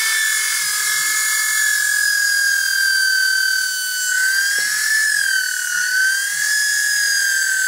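Handheld electric drill running as its bit bores a small hole into a piece of wood: a steady high whine whose pitch wavers slightly.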